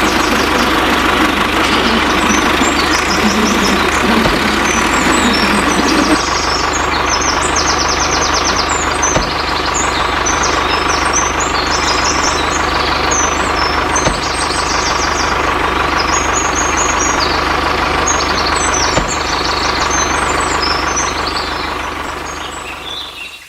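A motor runs steadily and loudly, with a constant hum, and fades away at the very end. Birds chirp through it.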